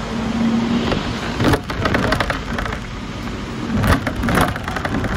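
Running noise of a Hong Kong double-decker tram heard from on board: a steady hum at first, then wheels clattering on the street rails with a couple of sharp knocks, about a second and a half in and near four seconds.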